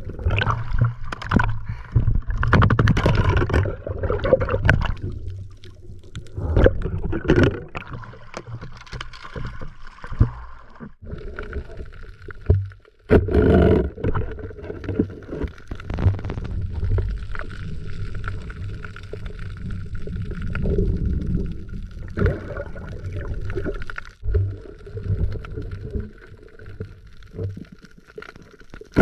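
Muffled underwater sound picked up by a submerged camera: uneven swishing and gurgling of water moving around it, with irregular bumps and one sharp knock about halfway through.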